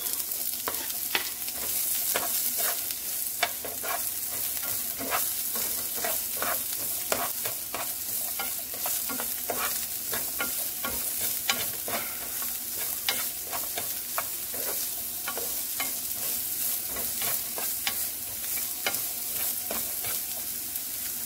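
Diced red onions sizzling in a little cooking oil in a nonstick frying pan, with a utensil scraping and tapping against the pan in repeated strokes as they are stirred.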